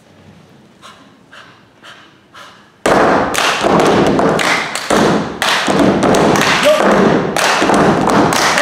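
Group body percussion: five soft clicks about two a second, then from about three seconds in a sudden loud, rhythmic run of foot stomps, claps and slaps on the body by several performers together.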